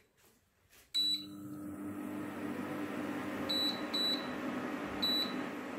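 Induction cooktop's touch panel beeping as a cooking zone is switched on, and the cooker starts running with a steady hum of its cooling fan about a second in. Three more short beeps follow as the power level is stepped down.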